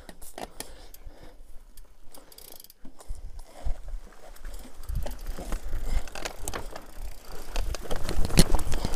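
Enduro mountain bike rolling fast down a dirt singletrack: scattered clicks and rattles from the bike over the bumps with tyre and wind rumble, building louder over the second half.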